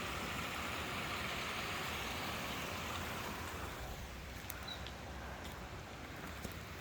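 Steady rushing noise of rain-fed running water, a headwater stream or runoff, easing somewhat about halfway through.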